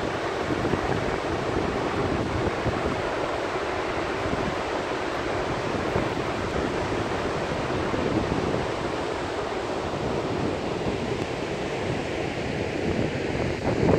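Steady rushing roar of a large waterfall, with wind buffeting the microphone in an irregular low rumble.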